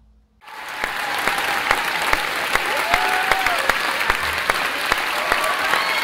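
Large concert crowd applauding and cheering: a dense wash of clapping with scattered shouts and whistles, fading in about half a second in and then holding steady.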